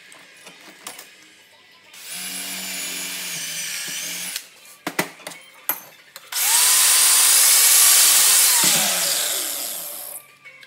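Electric drill boring holes through a scrap-steel bracket in two runs, the first about two seconds long and the second, louder, about four, its whine falling as the motor spins down at the end. A few sharp metallic clicks between the runs.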